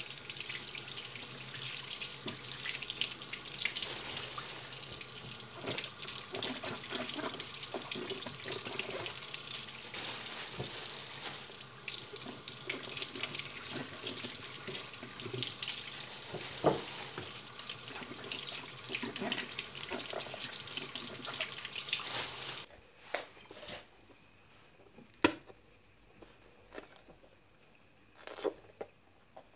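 Kitchen tap running into a sink while green bell peppers are rubbed and rinsed under the stream, with small splashes and squeaks of hands on the wet skins. The water stops about three-quarters of the way through, followed by a few light knocks and one sharp click.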